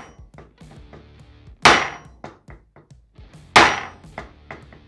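Short sledgehammer striking a block of wood set on the end of a 1987 Honda TRX250R countershaft in the bare engine case: two heavy blows about two seconds apart, each dying away over about half a second. The shaft stays stuck, which the owner puts down to the bearing's inner race or collar being rusted to it, or to years of built-up grit.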